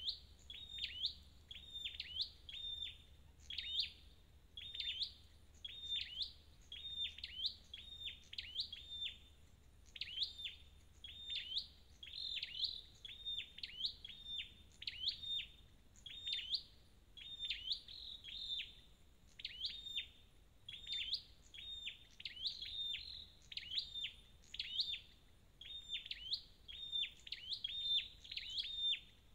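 High, sharp chirps of a chim sâu đầu đỏ (a flowerpecker), repeated evenly about twice a second in one unbroken series, as in a call file played to train or lure the bird.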